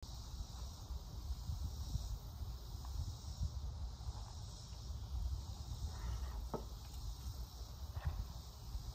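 Steady high buzz of a summer insect chorus, over a low rumble, with a couple of faint ticks in the second half.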